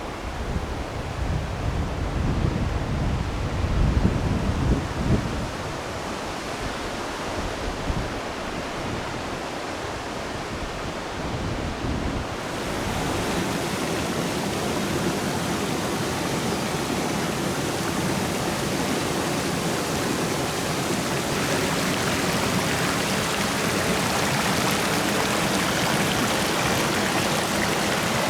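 Mountain stream rushing steadily. For about the first twelve seconds, gusty low rumbles of wind on the microphone sit under it; then the sound changes abruptly to a brighter, even rush of water.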